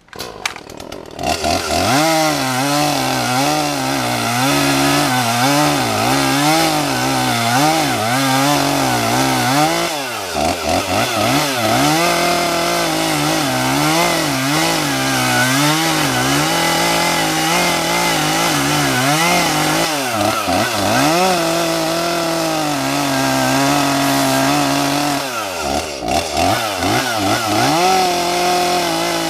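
Two-stroke chainsaw starting about a second in and running under load as it cuts into a tree trunk, its engine pitch wavering up and down, with a few brief drops as the chain bogs in the cut.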